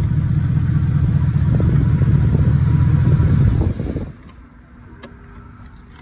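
BMW 745's V8 engine running, back to life after a no-start caused by a water-damaged parking brake sensor. The engine sound drops away suddenly about four seconds in.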